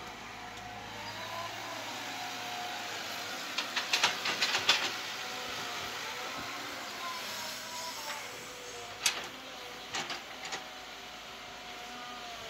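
CAT hydraulic excavator's diesel engine running under load, with a hydraulic whine that rises and falls as the loaded boom lifts and swings. About four seconds in comes a rattling clatter of soil and clods dropping into a dump truck's bed, then a few sharp knocks near nine and ten seconds as the bucket returns to the rocky trench.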